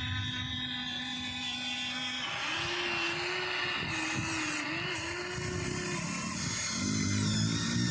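Radio-controlled model excavator's small electric motors whining steadily, the pitch shifting about two seconds in and again near the end as different movements are worked.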